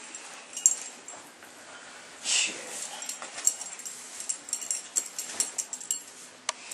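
Fabric rustling as a shirt is pulled on over the head, with a louder swish about two seconds in and many scattered light clicks and clinks, likely from a bead necklace.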